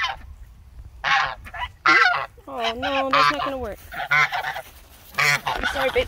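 Domestic geese honking, a run of short harsh calls with one longer, drawn-out call about halfway through.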